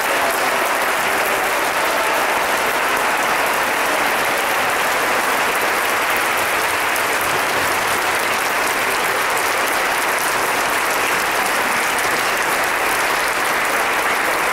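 Audience applauding steadily, a dense even clapping with no music.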